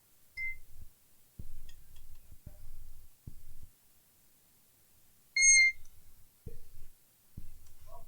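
Two short electronic beeps, a faint one about half a second in and a louder, sharper one a little past the middle, among scattered low knocks and bumps from items being handled on a workbench.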